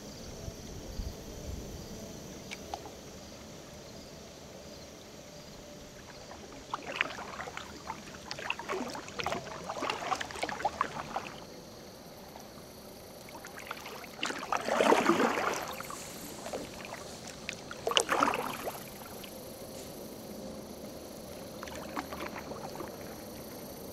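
Kayak paddle strokes: splashes and drips of water off the paddle blades in a few short bursts, with quiet gliding between them.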